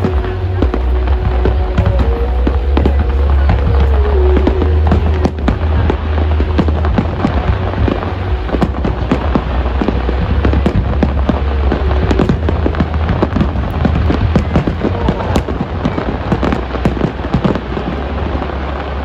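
Fireworks display: a dense, rapid stream of bangs and crackles from bursting aerial shells over a deep, continuous low rumble of booms.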